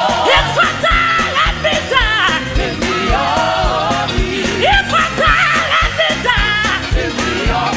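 Live gospel praise music: a lead singer and backing vocalists singing over a band with a steady, fast drum beat.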